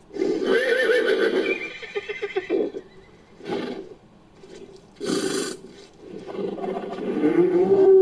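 Made-up dinosaur calls built from horse whinnies. A loud wavering whinny comes first, then a run of quick pulses and two short bursts, one of them breathy. Near the end a long call rises and holds on one tone.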